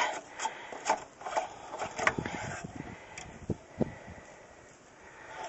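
Scattered light clicks and knocks, with a few dull thumps about halfway through, fading toward the end.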